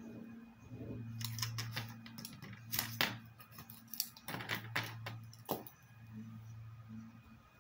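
A run of sharp clicks and taps from pencils and a ruler handled on a wooden desk. They start about a second in and stop about five and a half seconds in, over a low hum that comes and goes.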